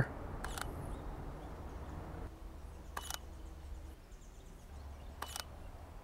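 Camera shutter of a Sony A7R II mirrorless camera firing three single frames, about a second in, three seconds in and near the end, over a low, steady outdoor background.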